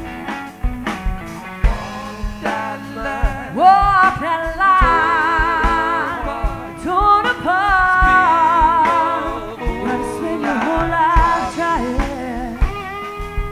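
Live band playing a slow soul-blues song: two electric guitars and keyboard over a steady beat, with a woman singing long, wavering held notes.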